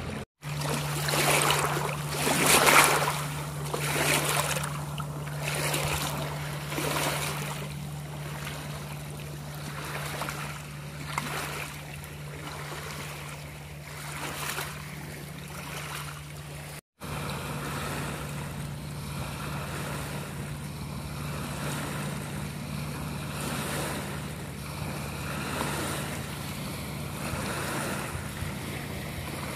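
Small lake waves lapping against the shore. A swell comes about once a second at first, then the washing grows fainter and steadier, over a steady low hum.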